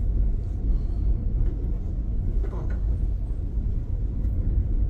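A low, steady rumble from running air-handling equipment, with a few faint knocks.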